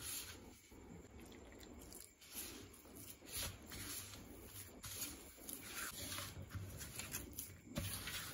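Hand mixing and squeezing crumbly rice-flour dough, moistened with coconut milk, in a stainless steel bowl: faint, irregular squishing and soft pattering.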